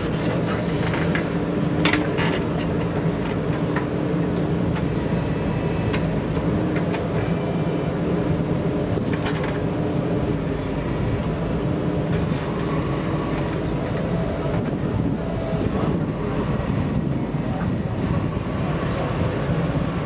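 JCB backhoe loader's diesel engine running steadily as it works its digging arm and bucket, with a few short knocks from the working gear.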